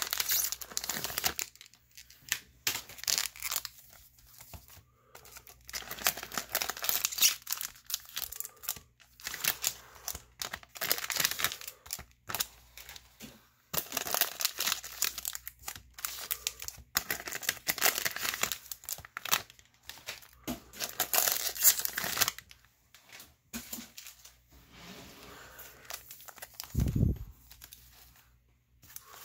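Foil and plastic wrappers of trading card packs crinkling and rustling in repeated bursts as they are handled and pulled out of their packaging, with a dull thump near the end.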